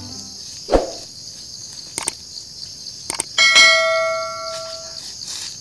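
Subscribe-button sound effect: a couple of sharp mouse clicks, then a ringing notification bell chime that fades out over about a second and a half. A steady high insect chirring runs underneath, and there is a dull thump about three-quarters of a second in.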